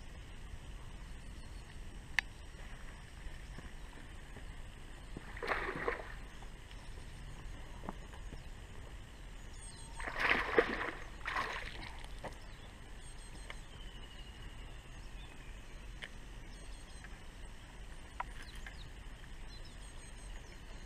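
Steady outdoor background at the water's edge, broken by two short splashes on the pond surface about five and ten seconds in, the second the louder, with a few sharp clicks and faint bird chirps.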